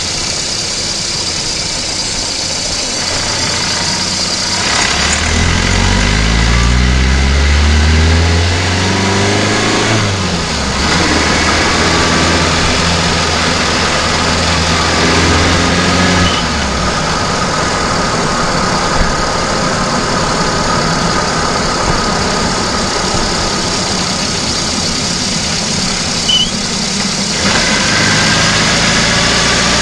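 VAZ-2109 (Lada Samara) four-cylinder petrol engine heard from under the hood while driving. Its pitch rises in steps from about five to ten seconds in, then holds steady, over constant road and wind noise.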